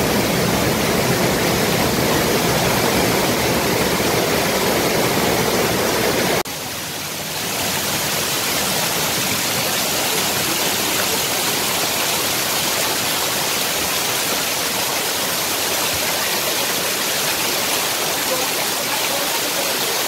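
Cyclone floodwater rushing down stone steps and pouring over a stone wall in a steady, loud rush. About six seconds in the sound changes abruptly to a slightly quieter, hissier cascade.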